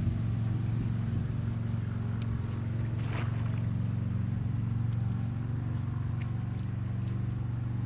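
A steady low engine hum, like a motor idling. About three seconds in there is a brief splash as a great blue heron lunges into the shallow water after a fish.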